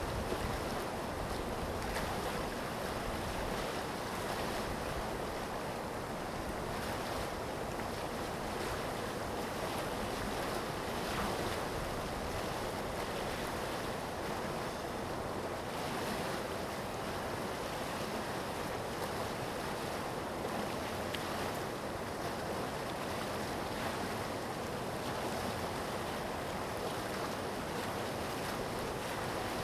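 Large river's water rushing and flowing steadily, an even wash of noise without pause.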